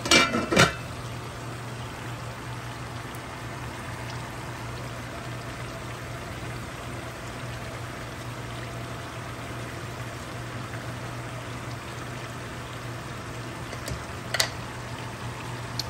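A large pot of okra stew in palm oil simmering on the stove: a steady bubbling hiss over a low hum. A clatter of handling sounds in the first second and a sharp click near the end.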